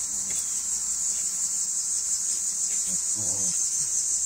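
Steady high-pitched insect chorus, with a faint dog bark about three seconds in.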